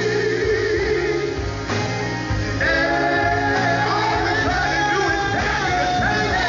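Male gospel quartet singing live, lead and harmony voices, over a band of drums, electric bass, electric guitar and keyboard.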